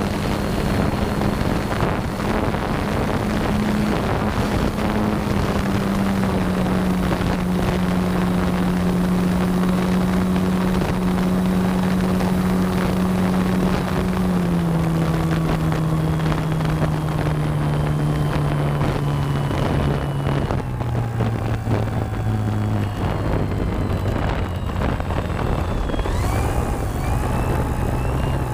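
Avios Grand Tundra RC plane's brushless electric motor and propeller droning in flight, the pitch stepping down in several stages, then rising again near the end. Wind buffets the microphone.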